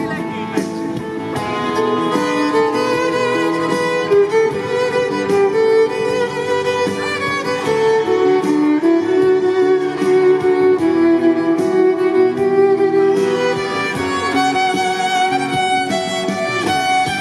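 Violin played live by a street musician, bowing a lively melody through an amplifier, over a backing track with a steady beat from a loudspeaker.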